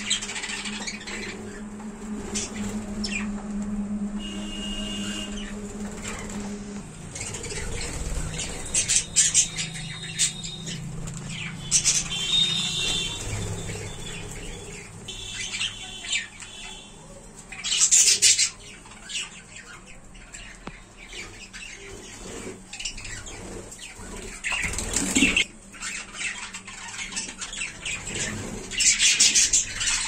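Budgerigars chattering and chirping, with several loud, sharp squawks scattered through. A low steady hum runs under the first seven seconds or so.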